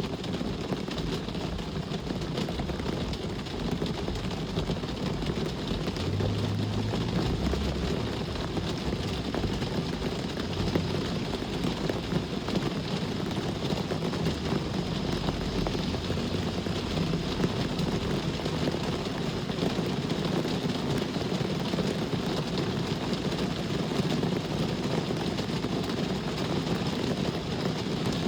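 Steady rain pattering, with the low rumble of road traffic underneath that swells a little several seconds in.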